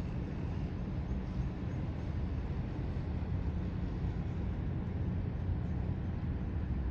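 Steady low rumble of outdoor background noise with a faint hiss above it, and no distinct events.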